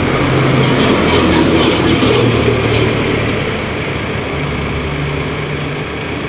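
Pressure washer running steadily: a low machine hum under the hiss of the water jet spraying into a pickup's engine bay.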